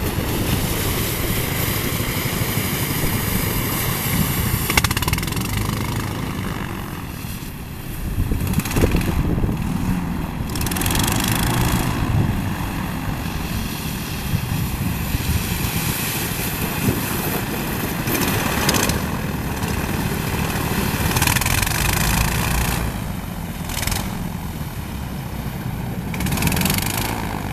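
Twin-engine airboat underway, its engines and air propellers running steadily, with a broad rushing noise that surges and eases every few seconds in the strong wind.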